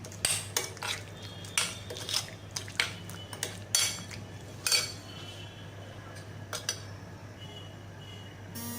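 Spoon clinking against a bowl while chicken cubes are stirred through a marinade of spices and sauces, with quick, frequent clinks that thin out to a few scattered ones after about five seconds.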